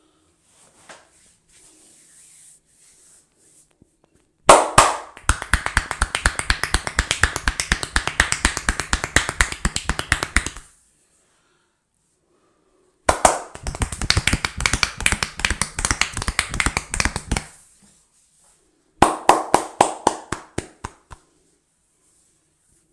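Rapid rhythmic hand strikes of a percussive head massage, the barber's hands clapping and tapping on the head at several strikes a second. They come in three runs, the first about six seconds long and the last about two, each opening with a louder hit.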